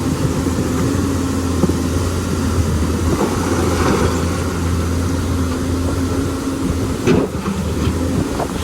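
Lonking excavator's diesel engine running steadily, with a sharp clank about seven seconds in.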